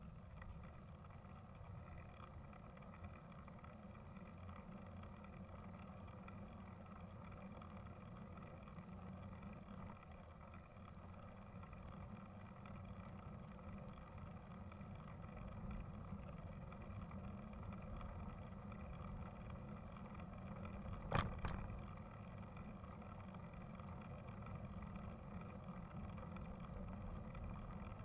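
Steady road and wind rumble of a bike on the move, with one sharp knock about three-quarters of the way through.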